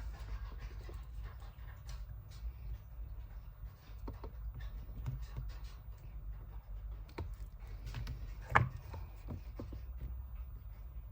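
Small handling clicks and taps from working on a battery pack, over a steady low hum, with one sharper click about eight and a half seconds in.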